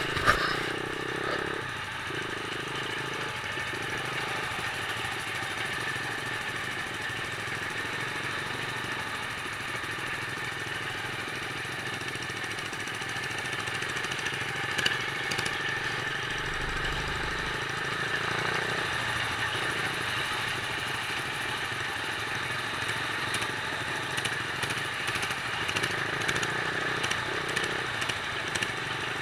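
Monowheel's engine running steadily as it is ridden, heard from a camera mounted on the machine. A sharp knock comes just after the start and another about fifteen seconds in.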